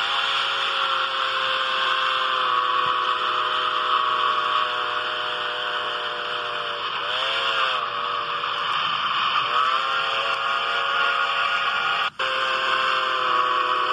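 Santa Fe 3751 steam locomotive's chime whistle blowing one long blast, a chord of several tones held for many seconds. Its pitch sags and comes back up twice, about seven and nine and a half seconds in, and it drops out for an instant near the end. Heard as playback through computer speakers.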